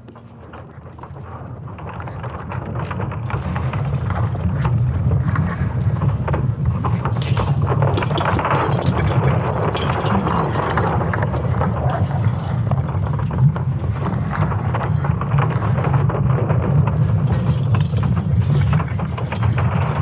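Sonified Earth's magnetic field, made from ESA Swarm satellite magnetic signals converted into sound: a deep rumble with dense crackling and creaking on top. It fades up over the first few seconds and then holds steady, and it represents the field's interaction with a solar storm.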